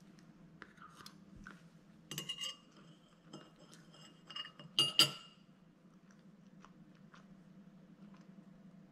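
Metal fork clinking against a plate while cake is eaten: a few ringing clinks about two seconds in, single clinks after that, and the loudest pair about five seconds in. A low steady hum runs underneath.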